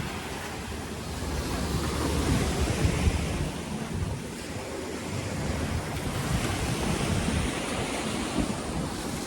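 Wind buffeting the microphone over the rushing wash of sea water aboard a paraw outrigger sailboat under sail, swelling louder a couple of seconds in.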